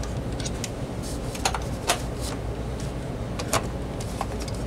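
Short plastic clicks and taps as a Panasonic cordless phone handset is handled and seated in its charging cradle, five or so sharp clicks spread through, over a steady low hum.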